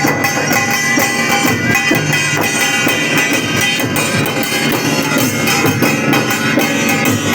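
Bhagoria-style Adivasi dance music with a steady drum beat.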